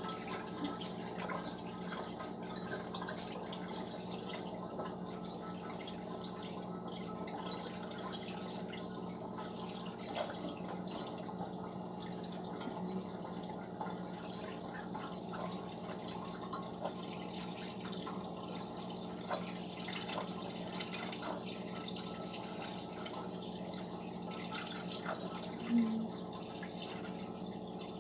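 Liquid dripping and trickling, with small scattered drips over a steady low hum.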